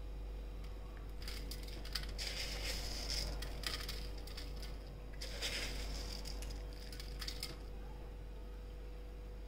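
Crunchy fried toppings sprinkled by hand onto fried maida basket cups and a steel plate: a light patter of small ticks and rustles in two handfuls, over a faint steady hum.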